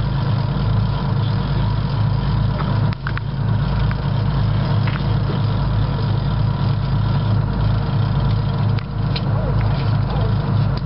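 A fishing boat's engine running: a steady, low pulsing drone, with a few faint clicks.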